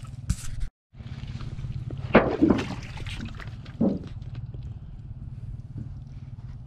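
Footsteps squelching in wet, waterlogged mud, a few heavier steps about two and four seconds in, over a steady low rumble.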